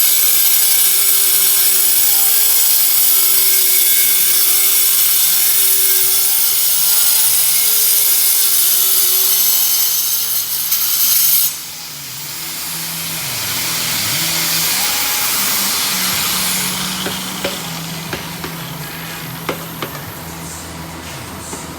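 Handheld power tool cutting a countertop, its motor pitch wavering as the load changes, then shutting off suddenly about eleven seconds in. After that a quieter low hum remains, with a few sharp clicks near the end.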